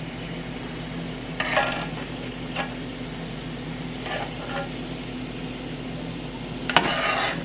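Sugared bananas frying, a steady sizzling hiss with a faint steady hum underneath and a few brief clatters from utensils.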